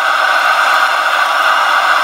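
Forge running with a steady, loud, even rushing hiss.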